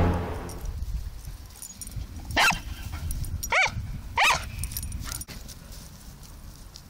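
Dachshund barking three times, short high-pitched barks about a second apart, as the tail of a music track fades out.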